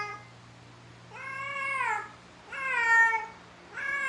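Female Persian cat in heat calling: a series of long, drawn-out meows, each about a second long and dropping in pitch at the end, coming roughly every second and a half.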